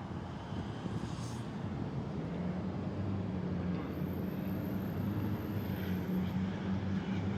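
A vehicle engine running with a steady low hum, a little louder from about two seconds in.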